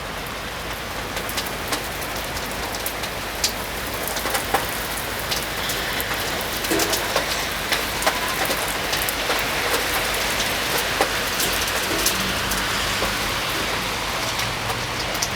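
Heavy rain falling and pattering on hard surfaces, a steady hiss scattered with many sharp drop ticks, swelling a little partway through.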